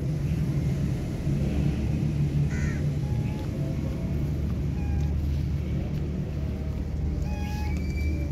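A steady low rumble with scattered short, even-pitched calls over it, and a harsher caw-like call about two and a half seconds in.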